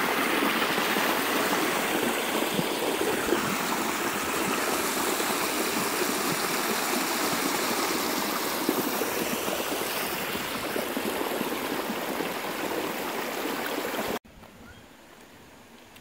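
Spring-fed creek rushing steadily over small waterfalls and cascades, an even roar of water; it cuts off suddenly near the end.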